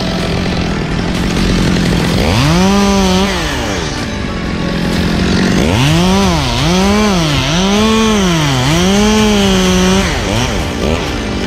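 Two-stroke chainsaw revving up to full speed and dropping back, once about two seconds in, then a run of rises and dips about once a second from about six seconds. It drops back to a steady engine drone near the end.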